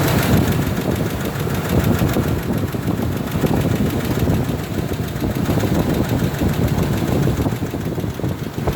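Ford F-150's 4.2 L V6 engine idling steadily with a fast, even ticking over the engine note. The tick persists even though the engine has already been rebuilt, and its cause is unknown to the owner.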